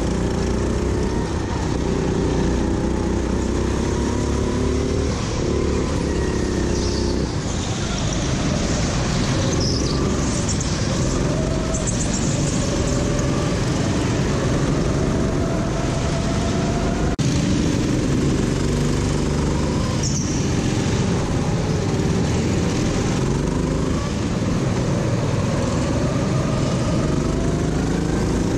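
Kart engine running hard, its pitch rising and falling again and again as the kart accelerates on the straights and slows for corners.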